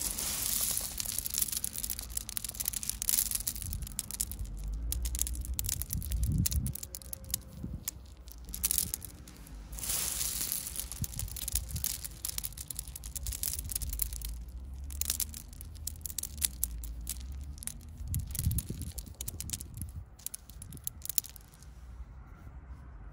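8–16 mm quartz gravel stirred and scooped by hand: pebbles crunching, clicking and rattling against each other in irregular bursts, quieter near the end.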